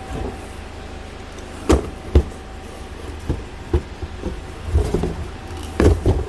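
A string of irregular knocks and thumps, the sound of objects being handled and set down, over a steady hum. The last pair of knocks near the end is the loudest.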